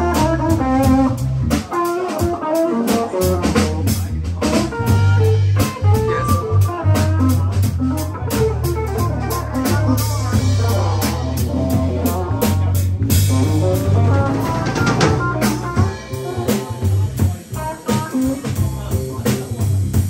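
A small live band playing together: electric guitar, bass guitar, drum kit and keyboard in a steady groove, with a prominent bass line and cymbal crashes around the middle.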